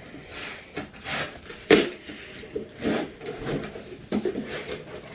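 Cardboard box and its packing being handled and opened: a run of short rustles and scrapes, with one sharp knock a little under two seconds in as the loudest sound.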